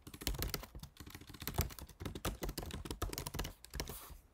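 Fast typing on a computer keyboard, a dense run of key clicks that stops shortly before the end.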